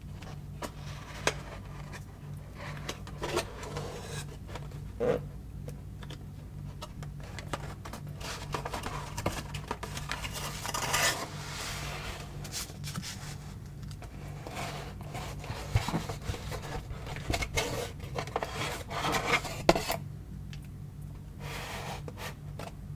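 Packaging and a small device being handled by hand during unboxing: irregular rubbing and scraping with scattered light clicks and knocks, over a steady low hum.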